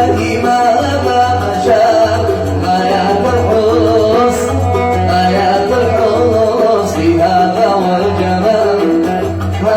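Oud playing a quick run of plucked notes in an instrumental passage of a Yemeni Sanaani song, over a steady low accompaniment.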